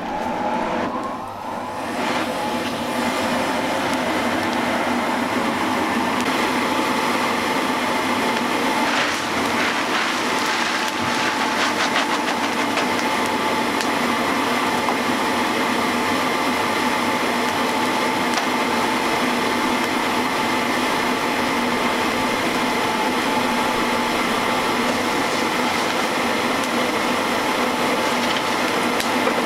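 Electric forge blower running steadily, pushing air into a freshly lit coal forge fire; it swells up over the first couple of seconds, then holds an even whirring hum. A few light clicks sound around ten seconds in.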